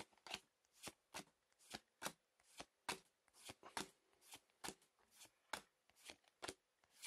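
Pokémon trading cards being slid and flicked one at a time in the hands, a faint, dry snap about three times a second.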